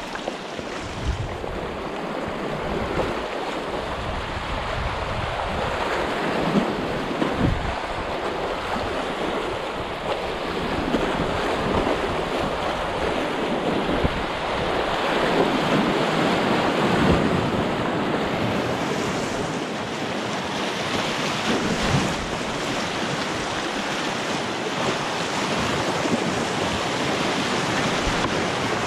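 Fast, muddy creek in flood rushing and splashing through riffles and small wave trains, heard close up from a stand-up paddleboard riding down it. The water noise is steady throughout.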